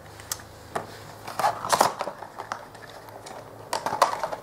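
Retail packaging being handled as a small flashlight is taken out of its box: a scatter of short clicks and crinkles, bunched about one and a half seconds in and again near the end.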